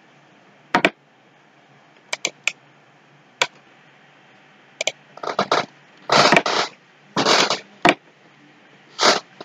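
Computer mouse clicks, single and in quick pairs, then several longer scraping bursts from the mouse in the second half, over a faint steady room hum.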